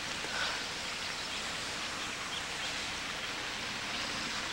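Outdoor ambience: a steady even hiss with a few faint, scattered bird chirps.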